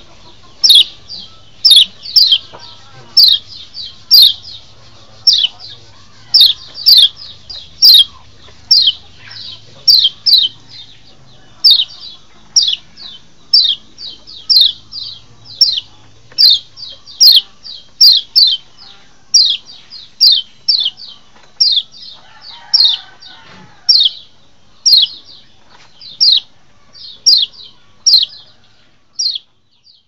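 Kecial white-eye calling over and over: short, sharp, downward-slurred chirps, often in quick pairs or threes, about two or three notes a second. This is a masteran (lure) call, meant to make wild kecial answer and come in.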